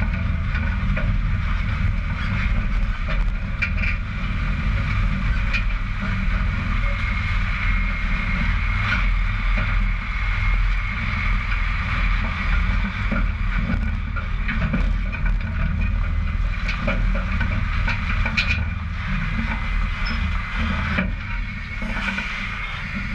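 Diesel engine of a Mitsubishi Fuso Super Great tractor unit running steadily as the truck and trailer move slowly, heard from low on the trailer's side, with scattered short clicks and knocks.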